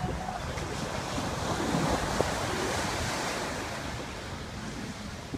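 Ocean surf breaking on a sandy beach: a rushing wash of water that swells about a second and a half in, peaks, and then slowly fades.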